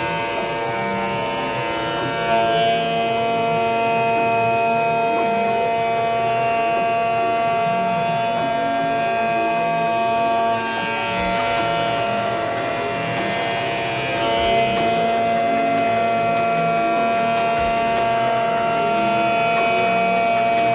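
Haas VF2 CNC vertical mill cutting aluminium under flood coolant: a steady, high-pitched whine of several tones from the spindle and cutter, over the hiss of the coolant spray.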